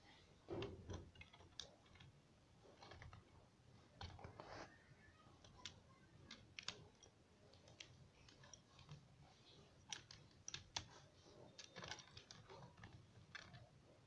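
Faint, irregular clicking and tapping of plastic calculator keys as an Indian ringneck parakeet pecks at them with its beak and steps on them.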